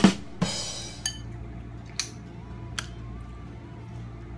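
Metal spoons knocking and clinking against ceramic bowls and plates while eating. There is a loud knock at the start and a short scraping clatter just after it, then three light ringing clinks about a second apart.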